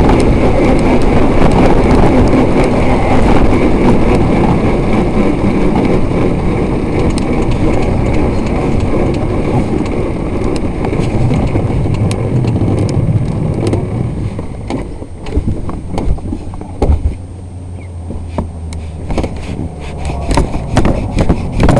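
Onboard sound of a hill-climb racing car's engine running hard, mixed with road and wind noise. About two-thirds of the way through it eases off to a lower, steadier note, with scattered knocks and rattles as the car rolls slowly.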